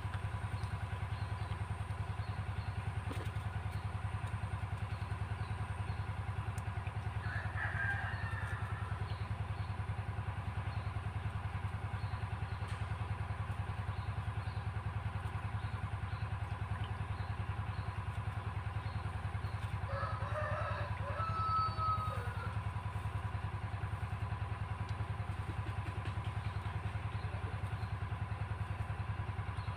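Single-cylinder diesel engine driving an irrigation pump for the rice fields, running steadily at a constant speed with an even low drone.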